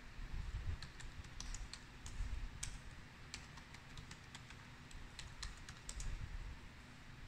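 Typing on a laptop keyboard: quick, irregular keystrokes that stop about six seconds in, over a low background rumble.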